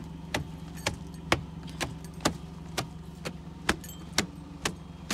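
Car idling with a steady low hum while its indicator relay ticks sharply and evenly, about twice a second, with alternate ticks louder, as with the hazard lights flashing.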